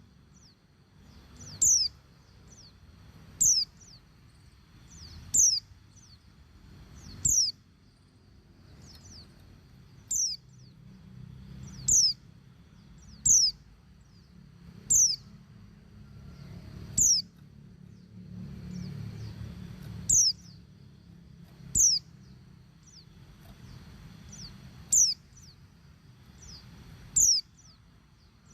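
Female white-eye (pleci) calling: short, high, downward-slurred call notes repeated every one and a half to three seconds, about thirteen in all. This is the female's call to the male, used to stir male white-eyes into song.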